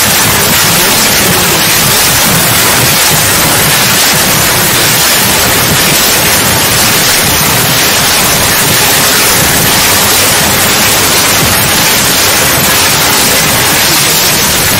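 Loud, steady hiss of static-like white noise, unchanging throughout.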